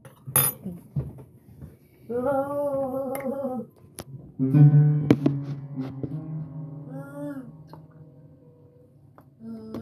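A person wailing in long, drawn-out cries held on one pitch: one cry of about a second and a half, then a longer one that fades out slowly, with a few small clicks between. This is part of a long bout of distress that comes on for no apparent reason.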